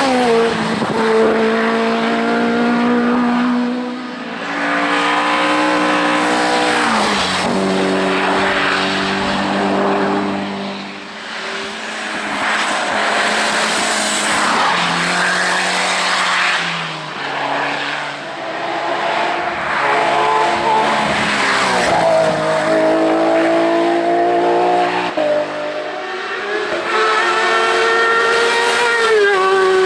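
Hill-climb race car engines at high revs, with the pitch stepping down several times as gears change and rising again under acceleration, and a loud rushing pass through the middle.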